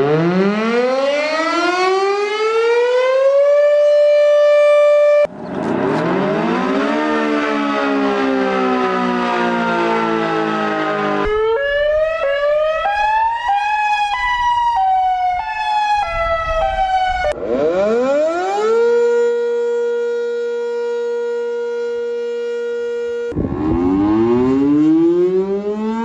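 Outdoor warning sirens, several different ones cut one after another. The first winds up to a steady wail; the next glides with several tones sounding at once; around the middle one jumps between pitches in steps; then one rises to a steady tone, and another starts winding up near the end.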